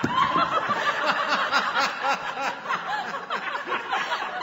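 Several people laughing and snickering together: short, overlapping rising-and-falling laughs at different pitches, repeated a few times a second.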